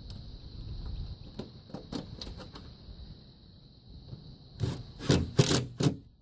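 Scrapes, clicks and knocks of a solar module and its clamps being handled and seated on the roof mounts, with a cluster of louder knocks about four and a half seconds in.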